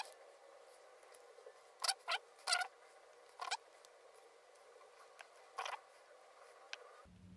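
Short scrapes and rustles of a white two-core mains cable and a black plastic plug body being handled and fitted together by hand, about six separate scratchy bursts over a faint steady hum.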